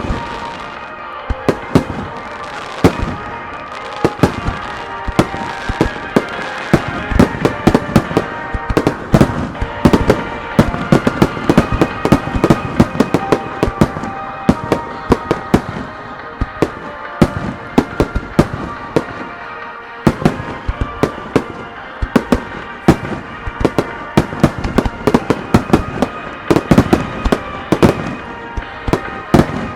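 Star mine fireworks barrage: a dense run of sharp shell bursts, often several a second, with music playing underneath.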